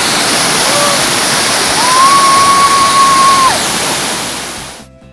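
Small waterfall crashing onto rocks and people beneath it, heard close up as a loud, steady rush of water. A brief high tone comes about a second in, and a longer steady high tone lasts nearly two seconds in the middle. The rush fades away just before the end.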